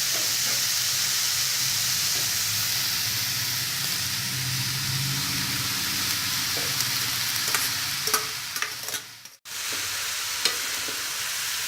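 Oil sizzling in a hot kadhai as boiled noodles are mixed into stir-fried vegetables, with a few sharp knocks of the stirring spoon against the pan near the end. The sound cuts out for a moment about nine seconds in.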